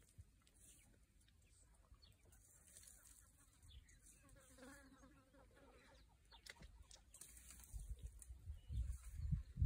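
Quiet bush sound with insects buzzing faintly, a fly-like buzz passing around the middle. A low rumbling noise builds near the end.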